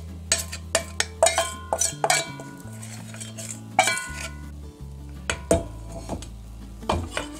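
A metal ladle clinking and scraping against a mixing bowl and a cast-iron pan while buckwheat crepe batter is poured and spread thin, with irregular sharp clinks throughout. Low background music plays underneath.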